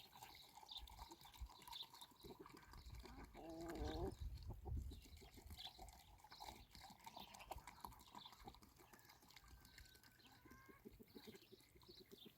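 Quiet pasture sounds: a single wavering bleat from the flock about three and a half seconds in, with faint high chirping throughout and a brief low rumble of wind just after the bleat.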